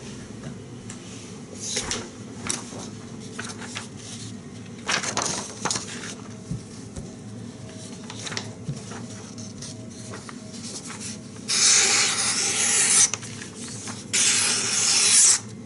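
A sheet of paper being handled, rustling and sliding in two long, loud stretches near the end. Before that, a few light knocks and handling sounds.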